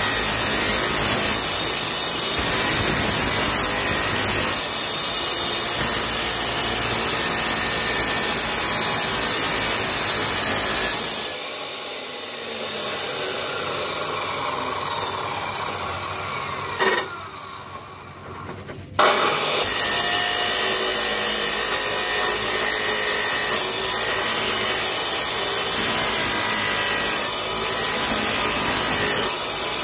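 Maktec abrasive cut-off saw grinding through a steel pipe with its spinning cut-off wheel, a loud steady rasping grind. About eleven seconds in the cut stops and the motor winds down with a falling whine. After a click and a few quieter seconds the saw starts again about 19 seconds in and goes back to cutting.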